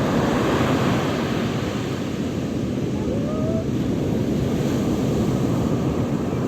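Sea surf washing onto the shore, a steady, continuous rush of breaking waves.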